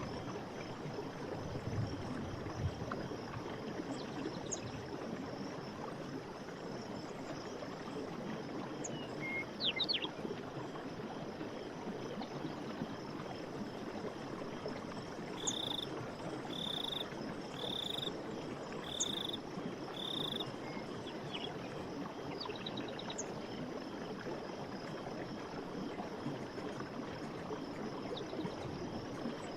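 Running water, a steady rush, with scattered short bird chirps. About halfway through, an animal gives five short high-pitched calls about a second apart.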